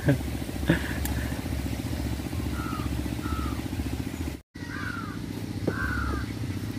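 A small engine running steadily with a fast, even pulse, with a few short high chirps over it.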